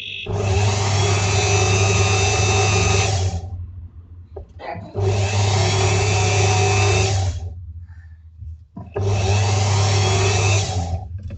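A handheld rotary power tool spinning a wool buffing bit to polish the inside of a ring. It runs at a steady pitch in three bursts of about three seconds, two and a half seconds and two seconds, with short pauses between them.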